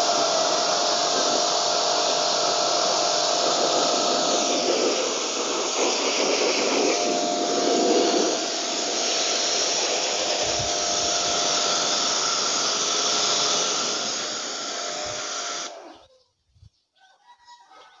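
Pressure washer running, its water jet spraying the coil fins of an air conditioner's outdoor condenser unit to rinse the dirt off, with a steady hum from the washer under the hiss of the spray. It cuts off suddenly near the end.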